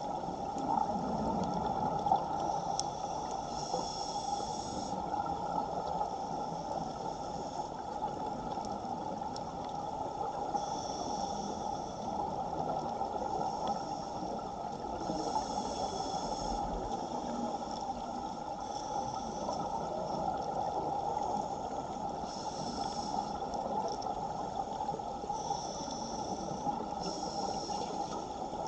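Underwater: a steady rush of water in a strong current, with a scuba regulator hissing about a second at a time every few seconds as the diver breathes.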